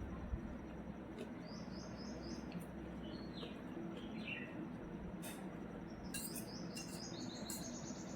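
Birds chirping: quick runs of short, high chirps about a second and a half in and again from about six seconds, with a few lower notes between, over a low steady hum.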